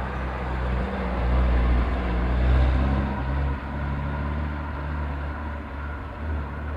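Engines of a Porsche 944 and a BMW hatchback running as the two cars drive up a winding road and pass by. The engine note shifts in pitch several times and is loudest about two and a half seconds in.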